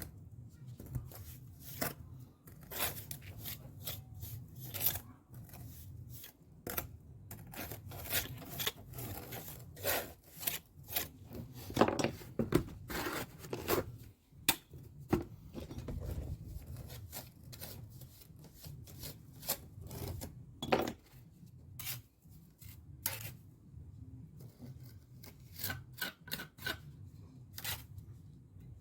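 Steel pointing trowel scraping and pressing wet mortar into brick joints: irregular short rasping strokes with occasional sharp taps of the trowel on the brickwork.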